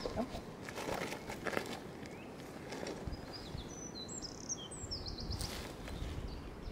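Small songbirds calling: a scatter of short high chirps and a quick trill in the second half, over steady outdoor background noise. A few soft rustles and knocks in the first two seconds.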